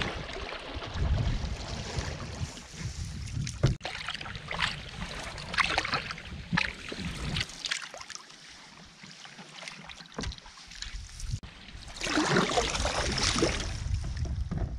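Canoe paddling: paddle strokes splashing and swirling in the lake water against the hull, with wind rumbling on the microphone. The wind drops away for a couple of seconds midway.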